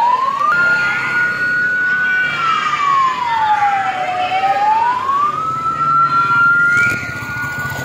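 Fire truck siren wailing. The pitch climbs to a high held note about half a second in, slides down over about two seconds, then climbs back and holds high to the end, with a low rumble underneath.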